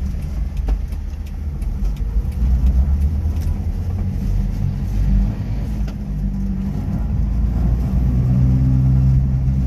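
Subaru Sambar minitruck driving on R1 tractor tires, the tires making a loud rumble over the running engine. About eight seconds in a steady drone comes up, the engine noise that sounds only in one narrow RPM range, which the owner thinks is something in the exhaust, a little baffle maybe.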